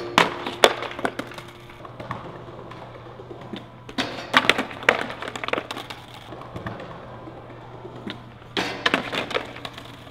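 Skateboard clattering on concrete and asphalt as tricks are bailed: sharp cracks of the board and wheels slamming down, in three clusters about four seconds apart.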